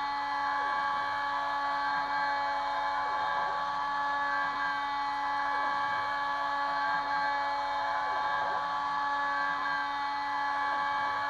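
Kress FME 800 spindle on a Stepcraft 2/420 CNC mill, running at about 11,000 rpm with a steady whine while milling aluminium. A sweeping rise and fall in pitch recurs about every two and a half seconds.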